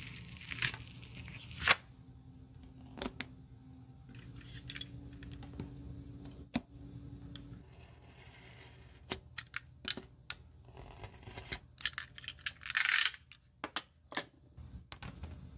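Utility knife scoring a thin black soling sheet along a steel ruler: scattered clicks and taps of the knife and ruler, and a short scraping rasp of the blade drawn through the sheet about three-quarters of the way in. Earlier, the slipper's worn sole is handled, with a sharp click a little under two seconds in.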